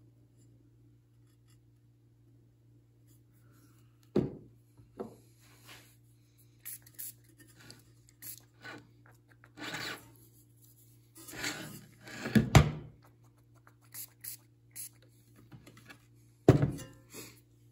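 Hand work on a subwoofer being glued: after a few seconds with only a faint steady hum, scattered knocks, rubs and short scraping noises, the loudest knock about twelve seconds in.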